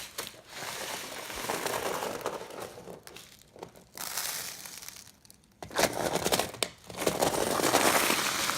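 Play sand scraping and crunching as toy construction vehicles are pushed through it, in several gritty stretches of a second or two with short pauses between.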